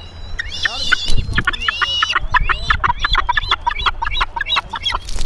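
Gulls squabbling right at the microphone: a rapid series of short, harsh, repeated calls, about five a second. Wind rumbles on the microphone, and there is a loud thump about a second in.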